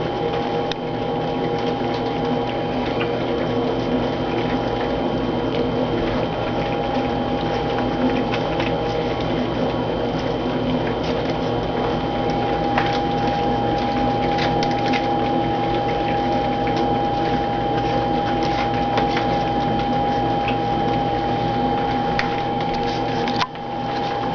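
A litter of young puppies lapping and chewing soft puppy food from dishes: a continuous busy patter of small wet smacks and clicks, over a steady hum.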